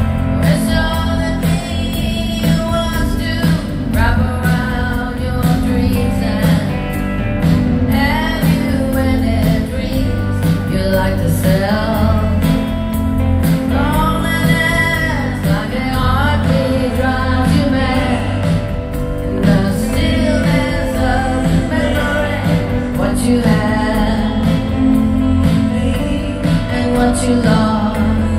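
Live rock band playing with a woman singing lead, her held notes wavering in pitch, over a steady drum beat and strong bass.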